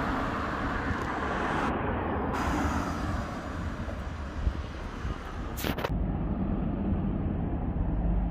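City street ambience: the steady noise of road traffic, which changes abruptly about two seconds in and again about six seconds in.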